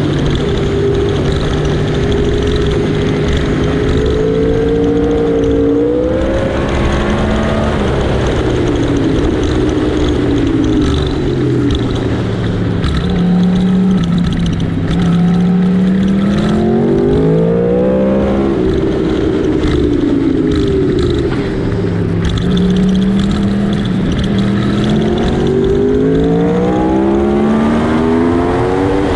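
2013 Yamaha R1's crossplane inline-four engine heard from onboard at speed, rising in pitch as it pulls through the gears with a short drop at each shift, then falling away as it slows for corners, several times over.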